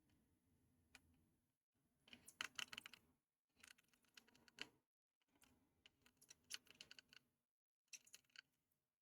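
Soldering iron tip being wiped clean in a tip cleaner: four short bursts of faint, scratchy clicking and crackling.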